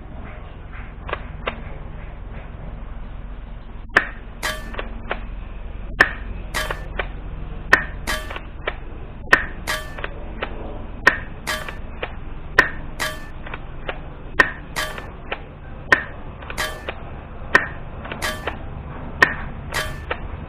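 M47C airsoft shotgun being test-fired, about ten sharp shots spaced every second and a half or so, starting about four seconds in. Each shot is followed by a smaller click, some with a brief metallic ping.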